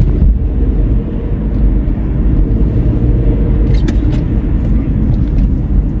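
Steady low rumble of a car driving, road and engine noise heard inside the cabin, with a couple of light clicks about four seconds in.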